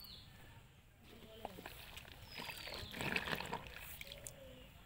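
Clothes being worked by hand in a basin of soapy water: sloshing and trickling water, busiest about two and a half to three and a half seconds in.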